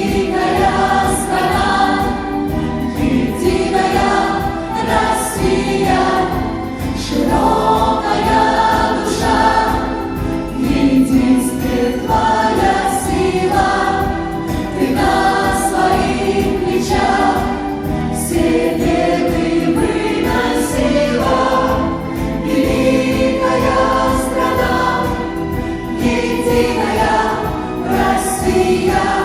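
Choir singing a song over instrumental accompaniment with a steady beat, recorded live in a concert hall.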